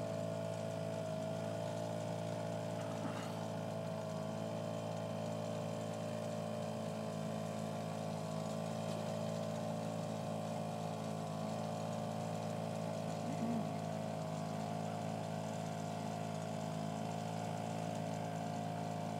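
A small fishing boat's engine running at a steady speed with the boat under way, its pitch holding even throughout.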